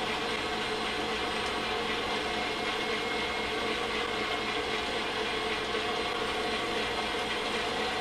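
Electric stand mixer running steadily, its beater turning the wet ingredients of a cake batter (creamed butter, sugar, egg and milk) in a stainless steel bowl: a steady motor hum and whine.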